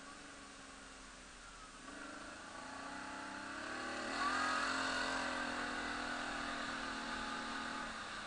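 Quad bike engine running on a dirt trail, quiet at first, then its note climbs about four seconds in as the quad speeds up, and holds steady until it eases off near the end.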